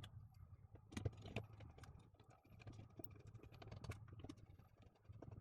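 Faint, scattered clicks and taps of small plastic parts being handled and fitted together while a coffee grinder is reassembled, over a low steady hum.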